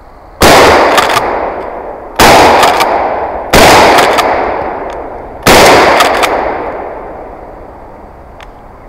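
Four shotgun shots fired in fairly quick succession, each a sharp blast followed by a long echoing tail that fades over a second or more. They are fired at a deer run by dogs.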